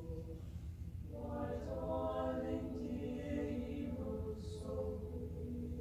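Mixed choir singing sustained chords, swelling about a second in and easing off toward the end.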